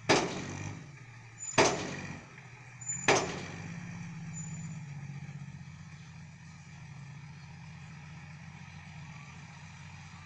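Six-wheel dump truck's diesel engine running as the truck moves with its tipper bed raised, with three sharp loud bangs about a second and a half apart in the first few seconds, then the engine alone at a steady drone.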